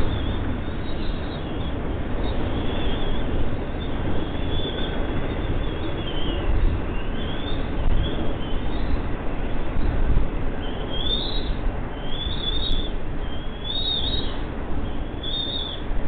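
Bald eaglets chirping to beg for food: a series of short, high, rising-and-falling chirps that come faster and more often in the second half. A steady low rumble runs underneath.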